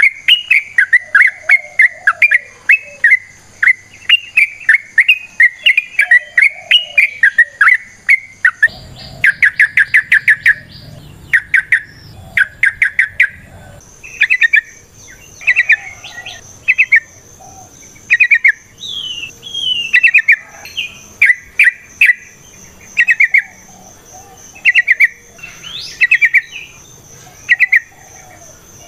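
Yellow-vented bulbul singing: fast, bubbling runs of chattering notes. About nine seconds in the recording changes, and the song continues as short clustered phrases about once a second, with a thin steady high tone behind it.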